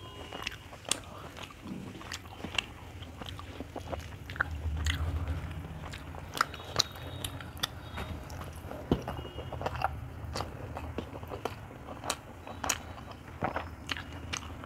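Close-up chewing of a mouthful of rice and curry eaten by hand, with many sharp mouth clicks. Fingers mix rice on a metal plate.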